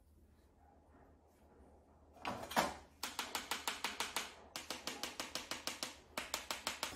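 After about two seconds of quiet, a metal spatula taps rapidly against a chocolate-filled rabbit mold, in runs of about seven quick taps a second, knocking air bubbles out of the freshly poured tempered chocolate. A couple of louder knocks come just before the first run.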